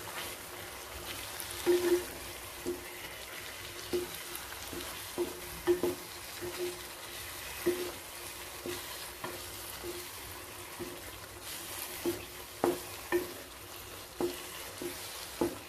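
A spatula stirring chicken and dry spice powders in a non-stick kadai, knocking and scraping against the pan about once or twice a second over a steady sizzle of frying. The spices are being fried in the oil with the chicken.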